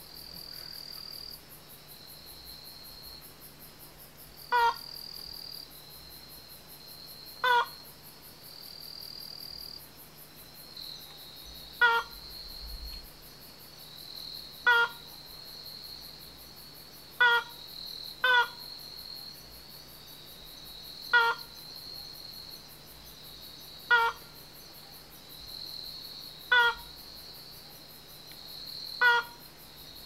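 Slaty-legged crake (Rallina eurizonoides) calling: a short, loud call repeated about ten times, mostly every two to three seconds.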